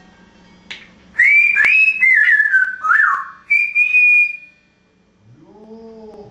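African grey parrot whistling a short phrase of sliding notes that step downward, then a single held note. Near the end a low, drawn-out meow-like call begins.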